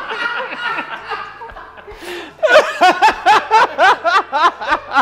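Men laughing, at first in chuckles, then from about halfway through in a burst of loud, rhythmic ha-ha laughter.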